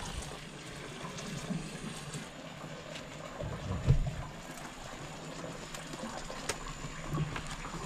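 Steady rushing of water, with a dull thump about four seconds in and a softer one near the end.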